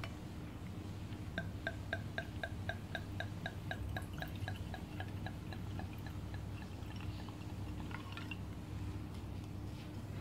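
Red wine glugging out of a glass wine bottle into a wine glass: a quick, even run of glugs, about four a second, that fades away after a few seconds as the pour ends. A few light clicks follow near the end.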